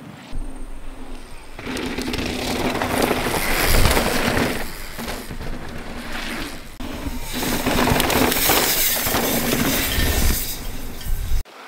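Mountain bike descending a dirt trail at speed, heard from an action camera on the bike or rider: wind rushing over the microphone and tyres crunching over loose dirt and gravel, surging and easing. The sound cuts off suddenly near the end.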